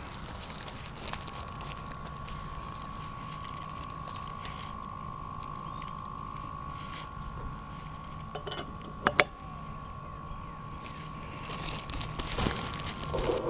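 A stainless steel kettle being handled, with small metal clinks and two sharp clicks about nine seconds in. A steady faint high tone and a low hum run underneath.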